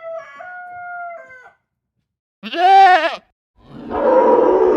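A rooster's crow trails off in the first second and a half. Then a goat gives a loud bleat with a wavering pitch, followed near the end by a second, rougher call.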